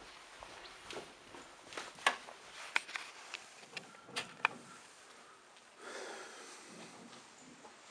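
Footsteps and handling noise with several sharp clicks and knocks, the loudest about two, three and four seconds in, then a short breathy noise about six seconds in.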